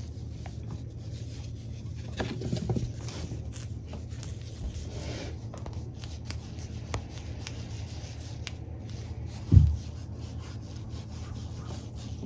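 Cat wand toy's ribbon streamers and feather scraping and rustling across a wooden floor as a kitten paws at it, with scattered light clicks. A louder patch of scraping comes about two seconds in, and a single low thump comes late on.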